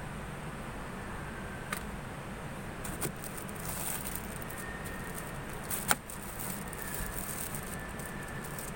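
A plastic-wrapped car sun visor being handled and pulled down: a few sharp clicks, the loudest about six seconds in, with plastic rustling, over a steady low hum.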